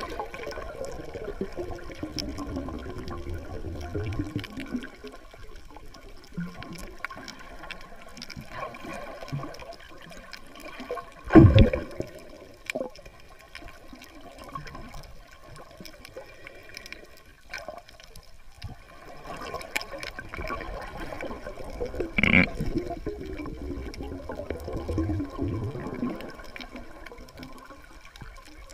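Water heard through a camera held underwater: muffled sloshing and bubbling. A sharp knock about eleven seconds in is the loudest thing, and a smaller one comes about twenty-two seconds in.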